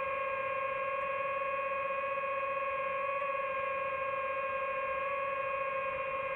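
DJI FPV drone's motors and propellers giving a steady, even-pitched whine with several overtones.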